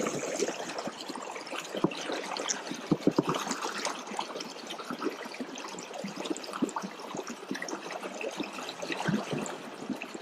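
Salt River current flowing and trickling, with many small irregular splashes.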